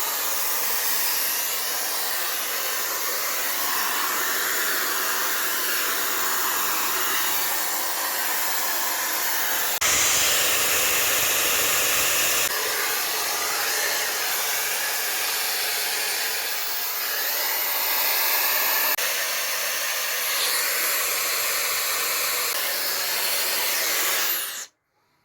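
Hair dryer blowing steadily, louder and fuller for a couple of seconds about ten seconds in, then switched off suddenly near the end.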